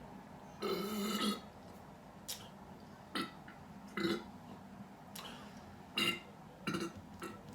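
A person burping: one long, drawn-out burp about half a second in, followed by a string of shorter burps.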